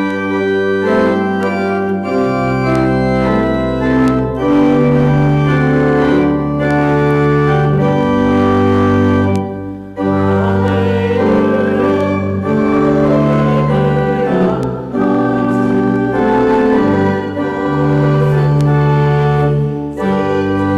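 Church organ playing the recessional music after the dismissal, in full sustained chords that change every second or two, with a brief break about ten seconds in.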